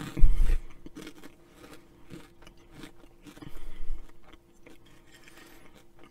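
Crunchy Flamin' Hot Cheetos being bitten and chewed close to a microphone, with irregular sharp crunches. A loud low thump comes just after the start, and a second low rumble comes around the middle.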